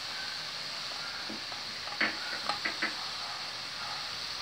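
Diced vegetables sizzling in a little oil in a metal pot while a metal spoon stirs them. The spoon scrapes and knocks against the pot a few times around the middle.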